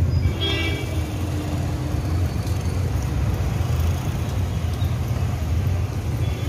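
Outdoor street noise: a steady low rumble of traffic on the road, with a faint short tone, a distant voice or horn, about half a second in.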